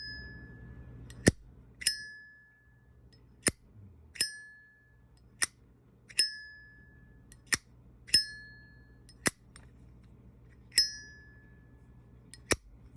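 Armor-case Zippo lighter being flicked open and snapped shut about six times, roughly one cycle every two seconds. Each opening gives a bright metallic 'ching' that rings on briefly, and each closing a sharp dry click. The ring is clear and even, which the owner judges the most beautiful of his lighters.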